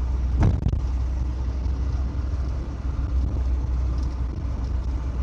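Steady low rumble of a vehicle driving along the road, with one short thump about half a second in.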